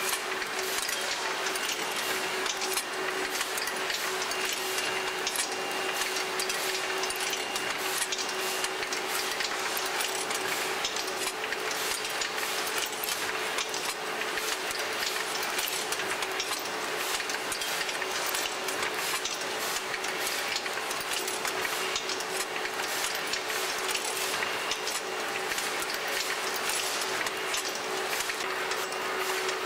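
Spaghetti-folding machine running on a packaging line: dense, irregular clicking and clattering of its grippers and conveyors over a steady hum.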